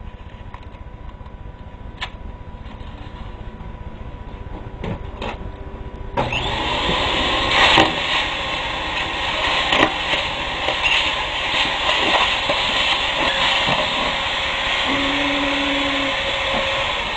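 A few handling knocks, then about six seconds in a vacuum cleaner switches on: its motor spins up and runs steadily with a loud rushing hiss and a steady hum.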